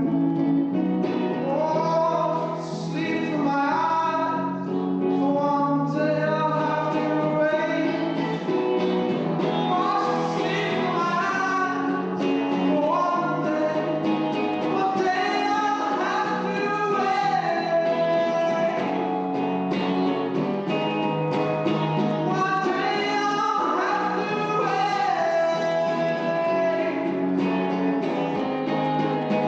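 A song performed live: a singing voice over acoustic guitar.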